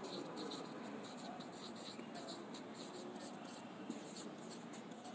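Marker pen writing on a whiteboard: a quick, irregular run of short, faint strokes as letters are formed.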